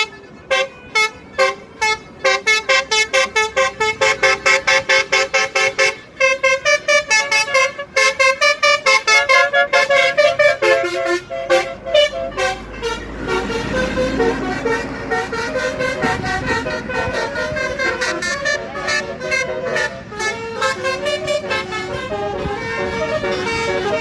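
Basuri musical horn on a Duta Sayur Trans bus playing a tune: rapid staccato horn notes in quick rhythmic runs for the first half, then longer connected notes that change pitch. A low rumble runs underneath for a few seconds near the middle.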